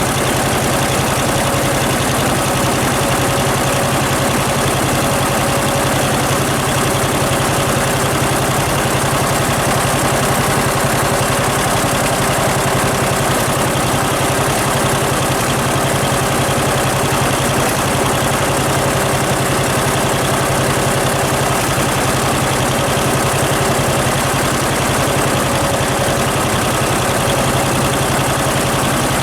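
John Deere 6300 tractor engine running steadily at a constant speed.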